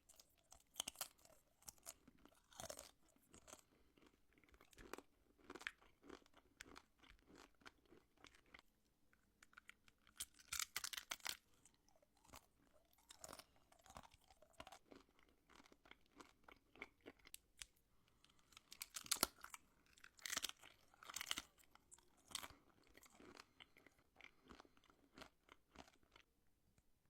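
Close-miked crunching and chewing of homemade wax candy: the wax shells crack and crackle between the teeth in bursts of sharp clicks, with quieter gaps between bites.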